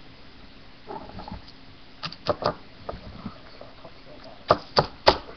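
Small plastic Littlest Pet Shop figurines being handled and set down, giving scattered light clicks and taps, with three sharper clicks near the end.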